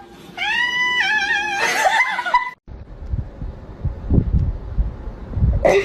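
A cat meowing in two long, wavering calls, as if answering back. About two and a half seconds in the sound cuts off, followed by low muffled thumps and rumbling.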